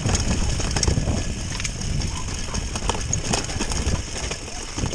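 Bicycle rattling and knocking over a rough, muddy stone track at speed, with tyre rumble and irregular clicks and knocks from the frame and components.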